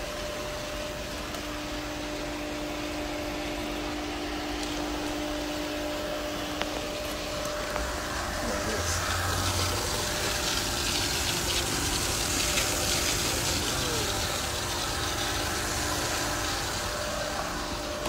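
Pool pump running with water flowing through the plumbing: a steady hum under a rushing sound that grows somewhat louder in the middle.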